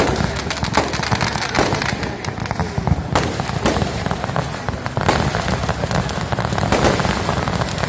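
Firecrackers packed into a burning Ravana effigy going off in a dense, continuous crackle of rapid bangs, with aerial firework shells bursting overhead. A few louder bangs stand out from the crackle.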